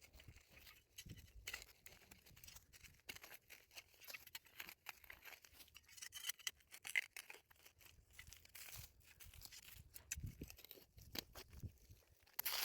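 Faint shovel digging into dry ashes and soil: irregular short scrapes and crunches of the blade breaking the ground.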